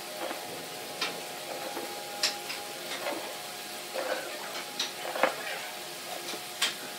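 Wooden blocks set down and pushed against each other on a wooden workbench: a few sharp wooden knocks, the loudest a little past two and five seconds in, over a steady background hum.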